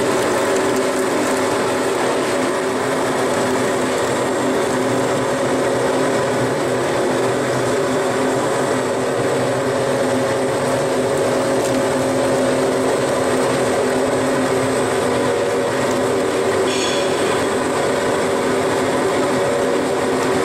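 Steady hum of juice-processing machinery with several steady tones, over the splash of pineapple juice pouring from a spout into a stainless steel tank. A short higher-pitched sound cuts in about three-quarters of the way through.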